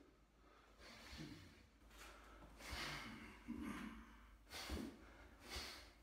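A man breathing out hard through his nose and mouth, about five short, sharp breaths in the rhythm of strikes during a knife drill, with a few faint thumps.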